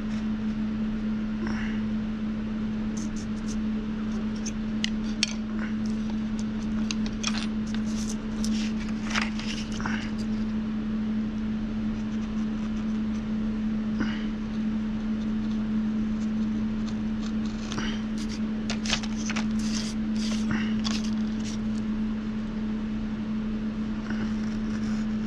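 A craft knife blade scratches and ticks in short strokes as it cuts a paper printout on a wooden board, busiest a few seconds in and again past the middle. A steady low hum runs underneath throughout.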